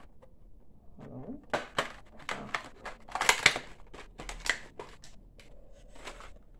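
Plastic packaging of a fineliner pen set being handled and opened by hand: a run of sharp crinkles and clicks, loudest about three seconds in.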